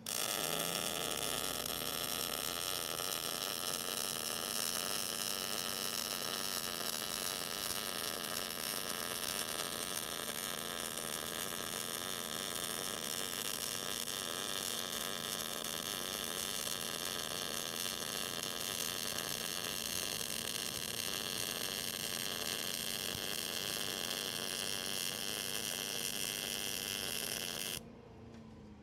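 Short-circuit MIG welding arc at medium inductance (setting 5 of 9), running steadily as a bead is laid, then cutting off about a second before the end.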